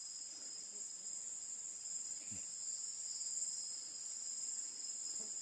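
Steady high-pitched insect chorus, several shrill drones at different pitches holding without a break.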